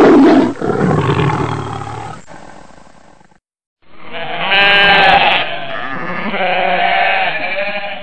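An animal growling roughly for about three seconds, then after a short pause a flock of sheep bleating, many voices overlapping.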